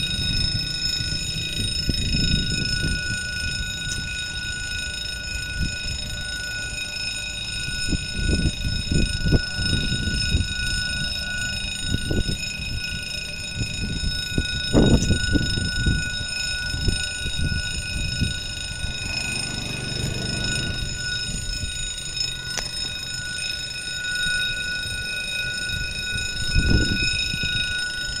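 Level crossing warning signal ringing without a break, a steady ringing of several high tones at once, over a low gusty rumble that swells now and then.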